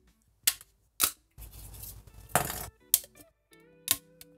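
3D-printed plastic support material being snapped off a large print by hand: a handful of sharp snaps and clicks, with a longer crunching break about two and a half seconds in.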